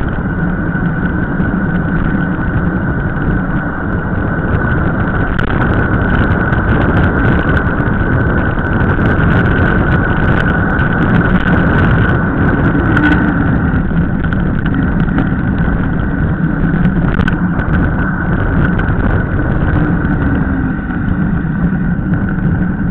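Wind noise on the microphone and mountain-bike tyres rolling on a rough asphalt lane during a fast downhill run: a steady loud rush with scattered clicks.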